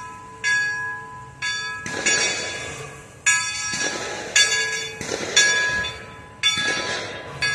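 Locomotive bell on the Northern Central Railway replica 4-4-0 steam locomotive York No. 17 ringing steadily, about one stroke a second, each stroke ringing on and fading before the next, as the engine moves across a grade crossing. Bursts of hiss come between some strokes.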